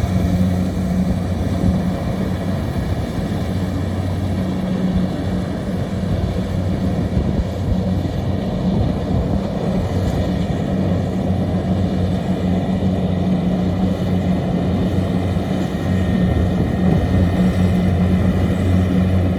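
Kubota DC-70 Plus rice combine harvester running steadily under load, a constant engine drone with a low hum and a wash of machinery noise, getting slightly louder near the end.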